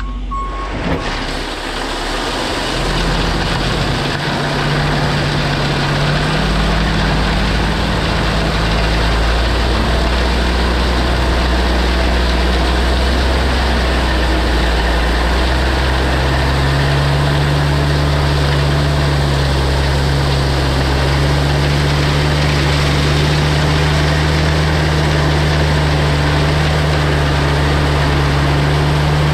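Diesel dump truck engine running steadily under load while tailgate-spreading a load of stone up a steep slope. Its pitch steps up about three seconds in and again around sixteen seconds.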